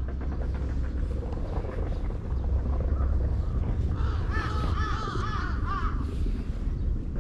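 A crow cawing in a quick run of about eight caws, starting about four seconds in and lasting around two seconds.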